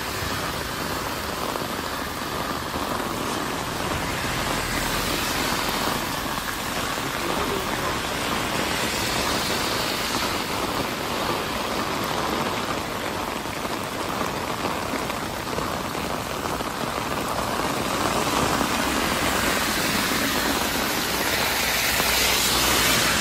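Heavy rain falling steadily on a street and pavement, a dense, even hiss. Near the end it grows louder, as water pours from an opening in a stone wall.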